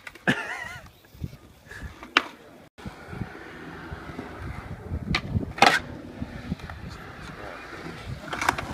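Skateboard tricks on concrete: sharp cracks of the board popping and landing, once about two seconds in and twice in quick succession around five and a half seconds in, with a low rumble of wheels rolling between them. A short voice calls out near the start.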